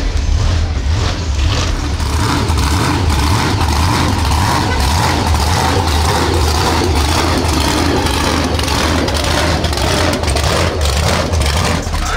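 Truck engines running with a deep, steady rumble.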